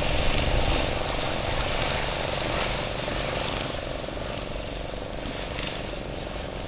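A fishing boat's motor running steadily and slowly fading.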